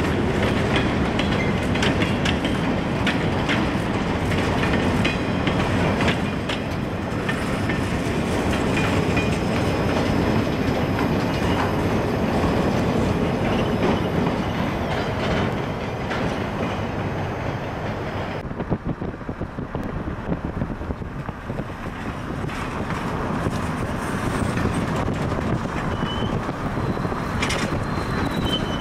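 Freight train of boxcars rolling steadily past, a continuous rumble of steel wheels on the rails. The sound turns duller about two-thirds of the way through.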